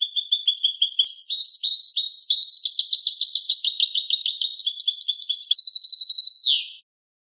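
European goldfinch singing one long unbroken phrase of fast, repeated twittering notes, high-pitched and clear, ending with a falling note just before it stops.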